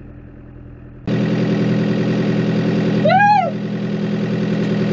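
Tractor diesel engine idling steadily, heard from inside the cab, coming in loud after a quieter first second. About three seconds in, a short rising-and-falling cheer from a voice rises above it.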